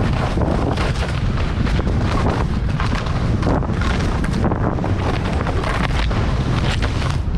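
Wind buffeting a GoPro action camera's microphone during a fast downhill ski run, with skis hissing and scraping over the snow in a rapid run of short scrapes.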